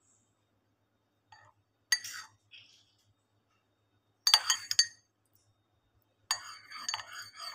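A spoon clinking against a ceramic coffee cup: a few separate taps, then a louder cluster of clinks. From about six seconds in come rapid repeated clinks as the spoon stirs condensed milk into black coffee.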